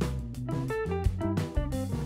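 Background music: short plucked notes that fade after each one, over a steady drum beat.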